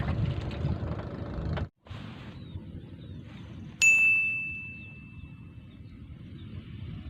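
Engine and wind noise that cuts off abruptly, then quiet outdoor ambience with faint chirps, then a single clear bell-like ding that rings on one pitch and fades over about two seconds.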